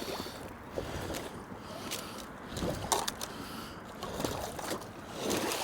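Footsteps in boots crunching and breaking through a layer of ice over shallow flood water, at a steady walking pace.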